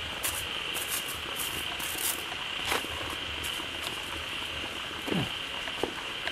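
A chorus of frogs calling at a pond: many short, sharp clicking croaks over a steady high-pitched drone, with one falling call about five seconds in.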